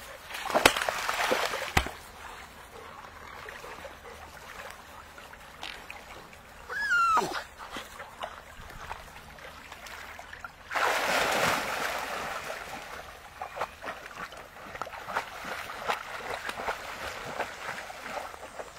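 Splashing and sloshing as Labrador puppies wade in and out of shallow water at the bank, with a short burst of splashing near the start and a longer one about eleven seconds in. About seven seconds in, a puppy gives one short whine that falls steeply in pitch.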